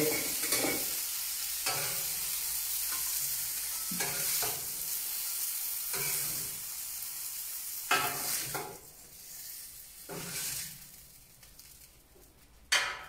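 Food frying and sizzling on a hot, heavy enamelled plancha, with a spatula scraping and stirring through it every second or two. The sizzle dies down after about eight and a half seconds, and a sharp clunk sounds near the end as the grill lid is shut.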